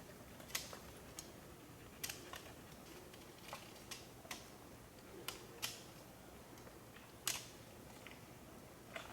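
A dozen or so short, sharp clicks and taps at uneven intervals over a faint steady hiss.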